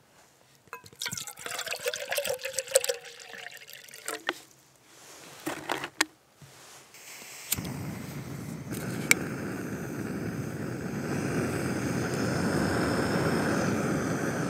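A Jetboil backpacking stove is handled with scattered clicks and rattles, then lit with a lighter. About seven and a half seconds in, a click is followed by the gas burner's steady hiss, which grows louder and holds.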